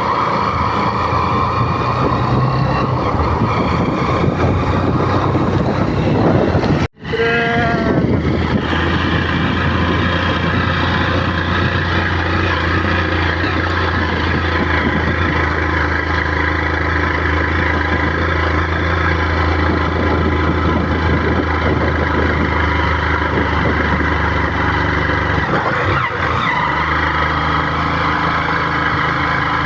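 A vehicle's engine running steadily, with road noise, while driving. It cuts out abruptly for an instant about seven seconds in, then resumes with a brief rise in pitch.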